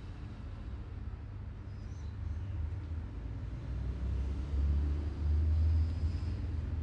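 Low background rumble that swells louder about four to six seconds in, then eases back.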